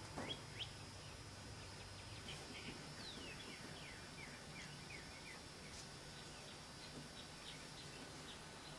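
Faint outdoor ambience with small songbirds chirping: scattered short, high notes that slide downward, coming in a quicker run around three to four seconds in.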